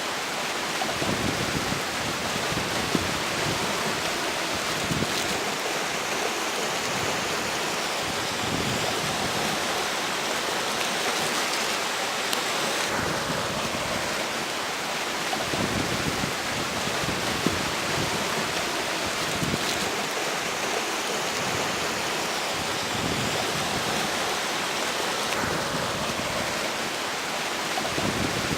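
Fast river water running steadily while strong wind blows across it, swelling in gusts about a third of the way in and again near the end.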